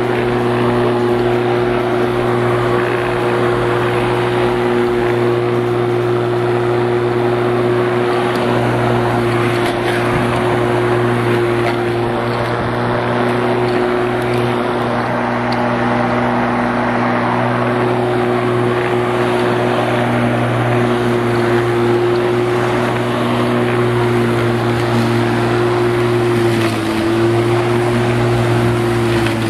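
Bosch Rotak 34R corded electric lawn mower running with its 1300 W motor and blade spinning, cutting grass as it is pushed along. It gives a steady motor hum whose pitch dips slightly near the end.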